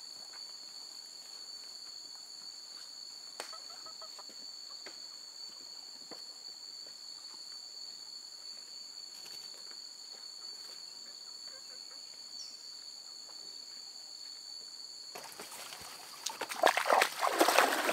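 Quiet outdoor ambience with a steady high-pitched insect drone and a few faint footsteps. About a second and a half before the end, loud splashing and sloshing as a person wades into a shallow stream carrying a woven basket.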